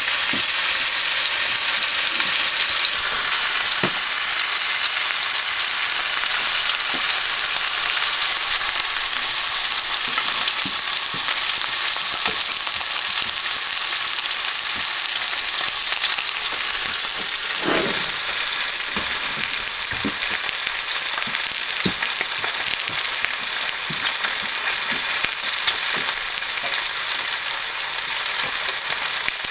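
Steaks sizzling in hot oil in frying pans: a steady hiss with scattered small pops, and one knock a little past halfway.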